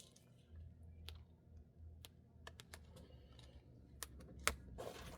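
Faint, scattered little clicks and scratches of fingers handling and picking at a small embroidered patch, with a few clustered taps about two and a half seconds in and again around four seconds.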